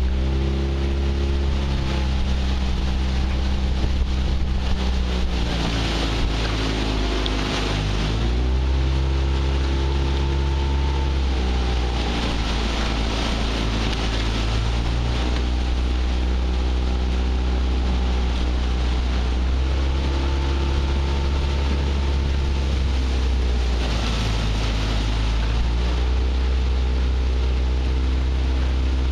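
Motor of a small coaching launch running steadily, its pitch shifting down and back up several times as the throttle changes, with a rushing noise of wind and water over it.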